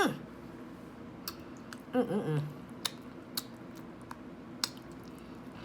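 A person chewing food close to the microphone, with scattered sharp mouth clicks. A short vocal sound falling in pitch at the start and a brief murmur about two seconds in.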